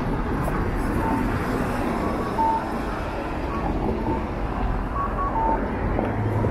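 City street traffic: a steady rush of cars passing a crossing, with faint short electronic beeps at intervals. A low, steady engine hum sets in near the end.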